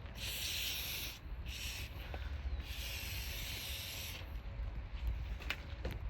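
Aerosol spray lubricant hissing onto a lift's piston shaft in three sprays: one of about a second, a short one, then a longer one of about a second and a half.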